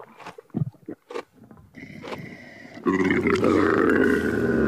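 Camel bellowing: a loud, long, rough groaning call that starts about three seconds in, after a few short soft sounds.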